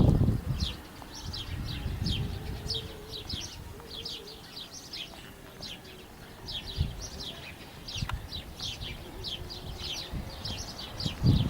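Small birds chirping over and over, short high chirps that slide downward, two or three a second, over a low background rumble. One sharp tap is heard past the middle.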